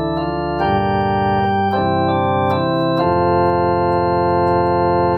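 Organ playing held chords as the introduction to a sung hymn, moving to new chords a few times and breaking off at the end.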